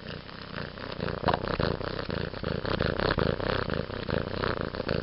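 Domestic cat purring right at the microphone, a steady pulsing rumble that swells about a second in.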